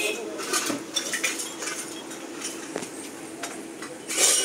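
A boxed cup-and-saucer set being handled and shifted on a cluttered counter: scattered light clicks, knocks and rustles of packaging, with a louder rustle about four seconds in.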